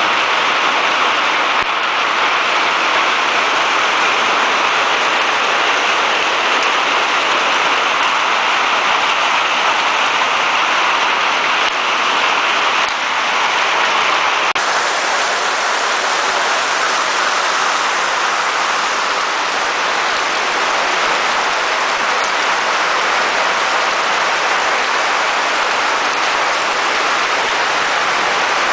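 Heavy rain falling steadily, a dense, even hiss of drops on surfaces that stays constant throughout.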